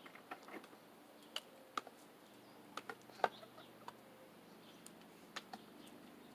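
Faint, irregular light clicks and taps, scattered unevenly, with the sharpest one about three seconds in.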